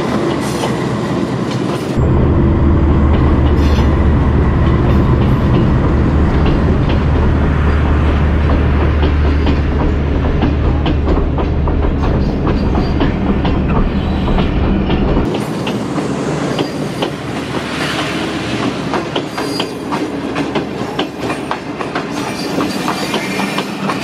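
A diesel-hauled passenger train rolling slowly past at close range as it pulls into a station: first the locomotive, then a string of coaches, with steady clickety-clack from the wheels crossing rail joints. A heavy low rumble runs from about two seconds in to about fifteen seconds, then gives way to lighter clattering.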